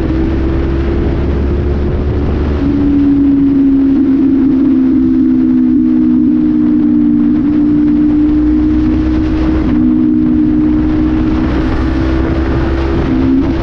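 Honda CB500F's parallel-twin engine running through an aftermarket sport exhaust, with no air filter, at a steady road cruise; the engine note holds nearly constant, shifting slightly in pitch a few times.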